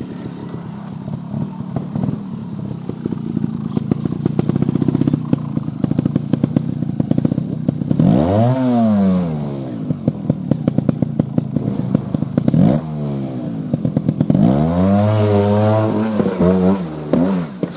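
Single-cylinder trials motorcycle engine ticking over as the bike rolls down a slope, then revved up and down sharply about eight seconds in, again briefly near thirteen seconds, and in a longer series of surges toward the end as it climbs a steep dirt bank.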